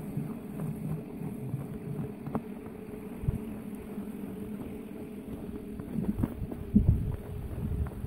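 Wind rumbling on the microphone, with the muffled, irregular thuds of footsteps in snow; a couple of heavier thumps come about halfway through and near the end.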